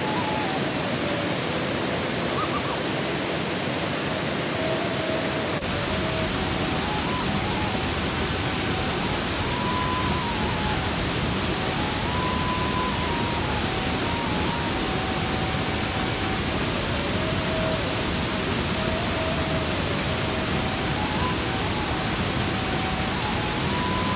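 Steady rush of a waterfall and whitewater mountain stream, loud and unbroken.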